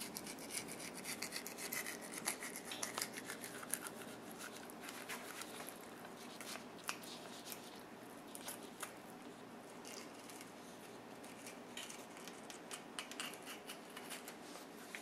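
Fillet knife scraping along the backbone and rib bones of a spring Chinook salmon as the fillet is cut off the bone: faint, irregular little clicks, busiest in the first few seconds and again near the end.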